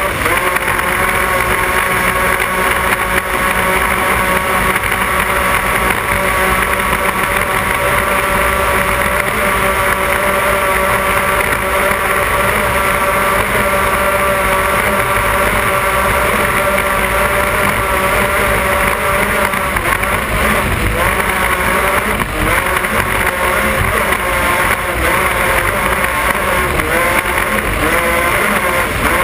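Offshore racing powerboat's engines running steadily at racing speed, heard from a camera on the stern, holding an even pitch that wavers slightly near the end.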